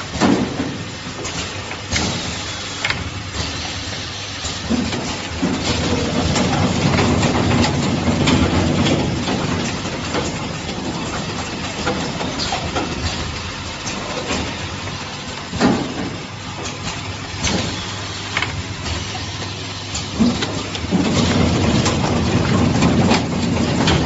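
Automatic Ethernet cable production line crimping RJ45 connectors: a steady machine hum with sharp clicks and clacks at irregular intervals. It has louder stretches of clatter about a quarter of the way in and again near the end.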